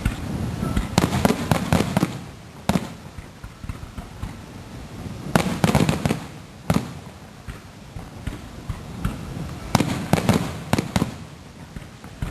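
Aerial fireworks going off: three rapid clusters of sharp bangs and crackles, about a second in, around six seconds in and near ten seconds in, with single bangs between them.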